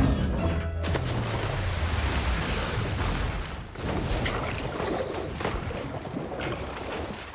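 Splash and water-rush sound effects of bodies plunging into the sea. A sudden loud whoosh of water comes about a second in, then a steady underwater bubbling rush broken by several sharper splashes as more divers go in.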